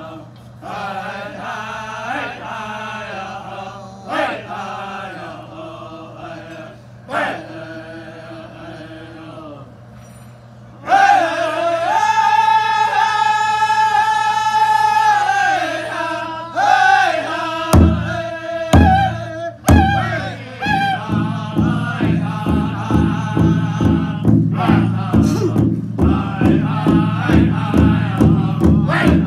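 A group of men singing a Native American spiritual song in unison. It starts softer, then rises to loud, high held notes about a third of the way in. A drum comes in about two-thirds through, a few spaced strikes first, then a steady beat of about two a second under the singing.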